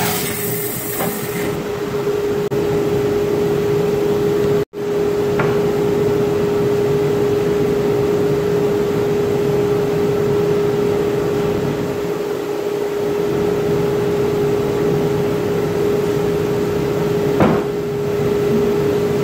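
Grizzly G0513X2BF 17-inch bandsaw running steadily with a 1-inch bimetal blade, the hiss of the blade finishing a resaw cut through box elder fading about a second and a half in, after which the saw keeps running without cutting. The sound cuts out for an instant about five seconds in, and there is a single knock near the end.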